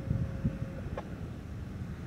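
Wind buffeting the microphone, with a faint steady tone that stops a little under a second in, and a single click just after.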